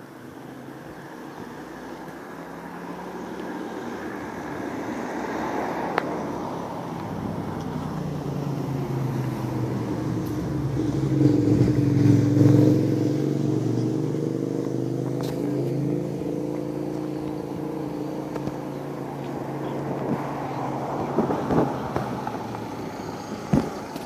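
A car's engine and tyres drawing near, loudest about halfway through as it passes, then fading away. A few knocks from the phone being handled near the end.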